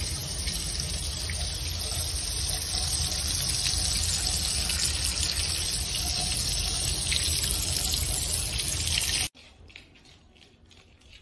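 A stream of running water spraying onto a wet cat's fur, a steady hiss that cuts off suddenly about nine seconds in. Faint light taps follow.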